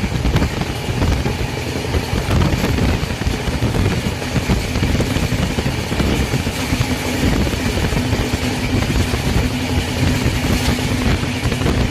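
Train running at speed: a loud, steady rumble and rush of noise, with a steady low hum joining in about halfway through.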